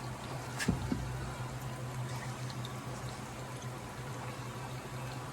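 Pot of water and coffee boiling on the stove, a steady bubbling hiss over a low hum, with a sharp clink and a couple of light knocks a little under a second in.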